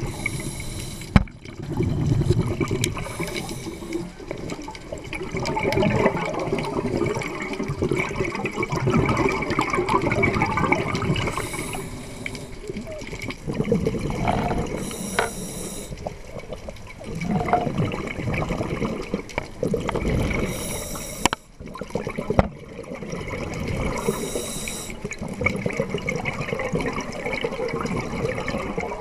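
Scuba diver breathing through a regulator underwater. A short hiss of inhaled air comes every few seconds, each followed by a longer gurgling rumble of exhaled bubbles.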